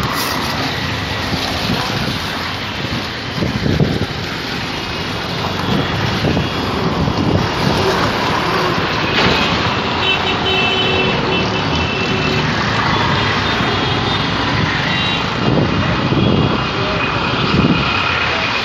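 Heavy rain falling steadily, with street traffic mixed in.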